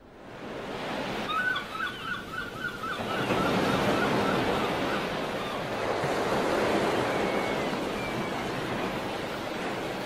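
Steady wash of sea surf that rises at the start and swells about three seconds in, with a short warbling chirp over it near the start.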